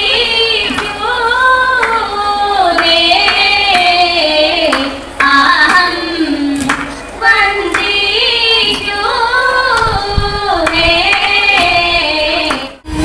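Female voices singing a song, the melody rising and falling in long phrases. It breaks off abruptly just before the end.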